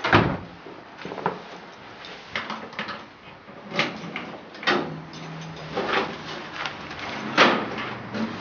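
A series of separate sharp knocks and clicks, the loudest right at the start, from a metal apartment mailbox door being opened and shut.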